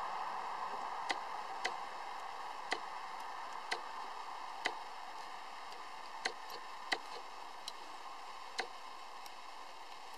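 About nine small, sharp metal clicks at irregular intervals as an Allen key is worked in short turns in the socket-head screws that hold a Mile Marker manual locking hub onto a Ford F250 front hub.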